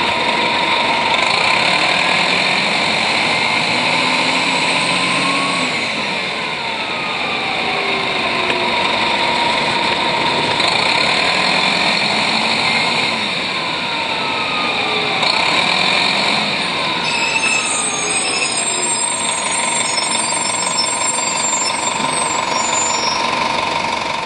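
Detroit Diesel Series 50 engine of a 1996 Nova Bus RTS transit bus idling while the bus stands still, under a steady high whine. A few sliding tones rise and fall over it.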